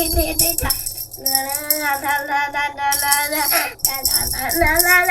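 Background music: a song with a sung melody over rattling, shaker-like percussion.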